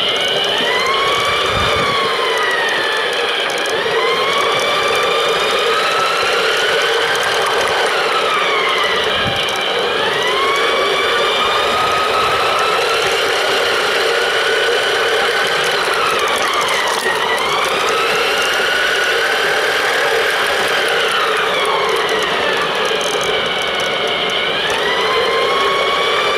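Electric motor of a Playmobil radio-controlled freight train, whining steadily as it runs along its plastic track. Its pitch rises and falls slowly in long arcs every several seconds.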